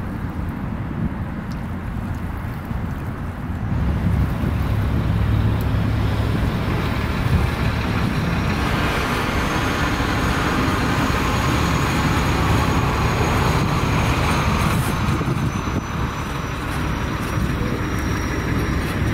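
Small waves washing and lapping on a pebbly, rocky shoreline under a steady low rumble that grows louder about four seconds in. A thin high whine runs through from about the middle on.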